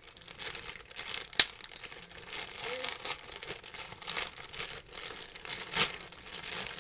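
Clear plastic packaging bag crinkling and rustling as it is handled and pulled open. There is a sharp snap about a second and a half in and another near the end.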